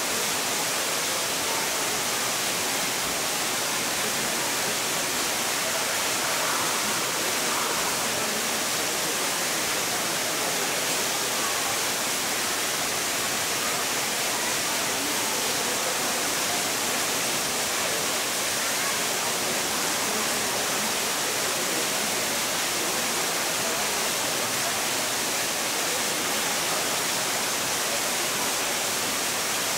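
Steady, even rushing of water, its level unchanging throughout.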